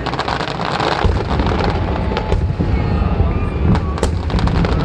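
Fireworks going off: a continuous low rumble of booming shells, with dense crackling in the first second or so and several sharp single bangs after the middle.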